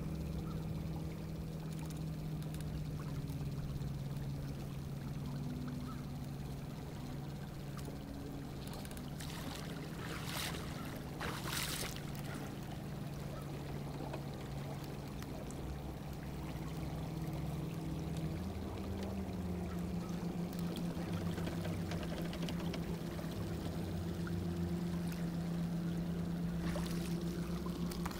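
Minn Kota electric trolling motor humming steadily as it pushes the canoe, over water trickling and lapping along the hull; the hum steps up in pitch about two-thirds of the way through. Two short whooshes of noise come near the middle.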